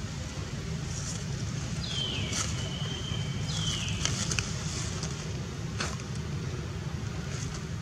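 Two high-pitched animal calls, about two seconds and four seconds in, each gliding down and then holding steady briefly, over a steady low rumble with a few faint clicks.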